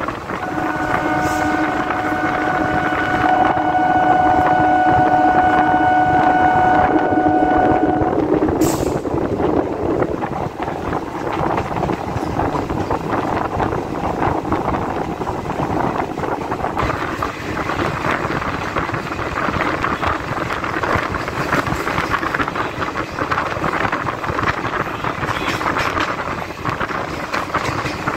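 Diesel multiple unit train's horn sounding one steady, multi-toned blast for about seven seconds. After a sharp click it gives way to the noise of the moving train, wheels on rail and wind rushing past the open doorway.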